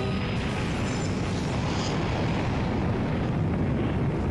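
Dense, steady rumbling roar, a sound effect for a giant planetary impact. Held music notes die away just as it begins.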